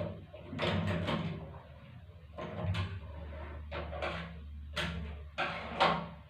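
Five or so separate knocks and clunks at uneven spacing, like objects or tools being set down and handled on a workbench, the loudest near the end, with a low steady hum coming in about halfway.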